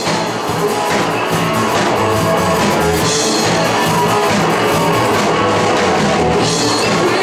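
Live hard-rock band playing loud and without a break: electric guitar over a drum kit.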